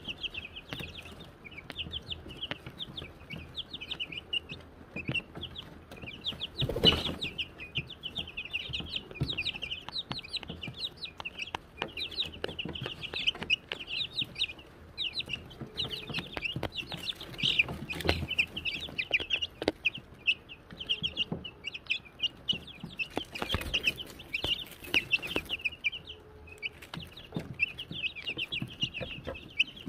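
A brood of Wyandotte chicks peeping continuously, many short high chirps overlapping. Scattered light taps and rustles run underneath, with a louder rustling burst about seven seconds in and more near the end.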